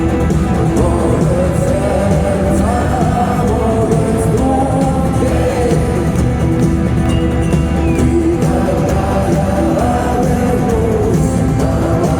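Live rock band playing a song with sung vocals, loud and steady throughout, heard from inside a large arena.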